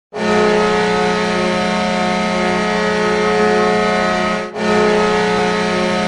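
San Jose Barracuda hockey goal horn blowing a long, steady blast of several held pitches. It breaks off briefly about four and a half seconds in, then sounds again.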